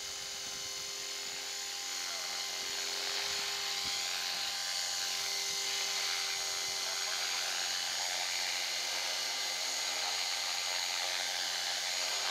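Thunder Tiger Mini Titan E325 V2 flybarless electric RC helicopter hovering, its brushless motor and gear train whining steadily over the rotor blades' hiss. It grows louder over the first few seconds, then holds steady.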